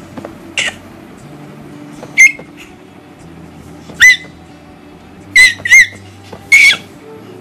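A baby squealing with delight: six short, high-pitched squeals, each bending up and down in pitch, the later ones louder and closer together.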